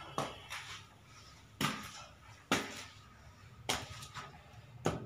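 Five short, sharp knocks, irregularly spaced about a second apart.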